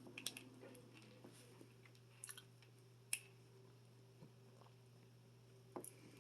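Near silence with faint mouth sounds of someone eating seafood boil: a few scattered soft chewing smacks and clicks, the sharpest one just past the middle.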